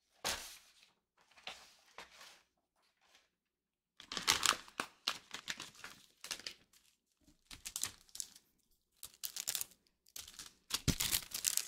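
Crinkly rustling and quick light clicks of a plastic sheet of rhinestone gems being handled, in bursts with short pauses between.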